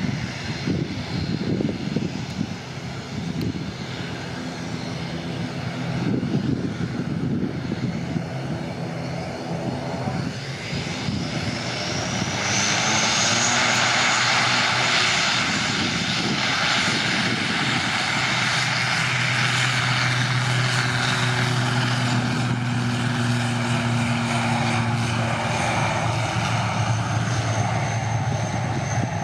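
ATR 72 twin-turboprop airliner on its takeoff run, its engines spooling up to takeoff power. The sound is quieter and uneven at first, then a rising whine comes in about twelve seconds in, followed by a steady loud engine and propeller drone with a low hum.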